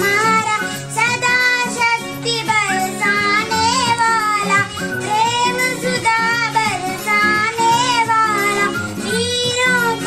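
A young girl singing a song solo, her voice gliding and breaking phrase by phrase, over a steady instrumental backing track.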